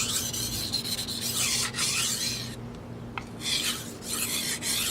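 A knife blade being stroked across a coarse 400-grit Naniwa Chosera whetstone: a gritty scraping in repeated strokes, with a short pause a little past halfway. The edge is nearly finished on this fast-cutting stone.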